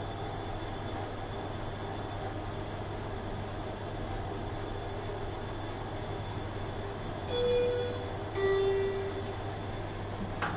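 Schindler 300 P traction elevator car running down with a steady hum. Near the end of the travel a two-note chime sounds, the second note lower, as the car arrives at a floor. A short click follows just before the end.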